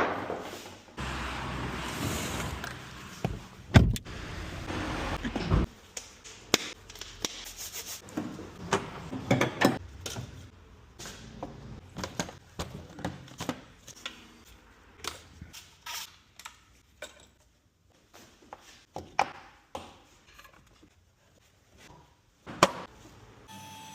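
Car workshop work sounds: a stretch of steady noise over the first few seconds with a heavy knock in it, then a long run of separate clicks, knocks and clanks of tools and car parts being handled.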